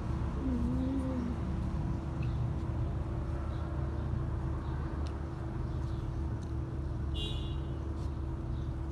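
Steady low background rumble and hum, with a short wavering tone in the first second and a brief high chirp about seven seconds in.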